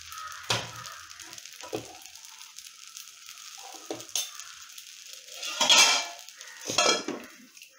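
Appam batter sizzling in a hot steel appam pan (appachatti), a steady hiss with a few faint ticks. Near the end come two louder clatters.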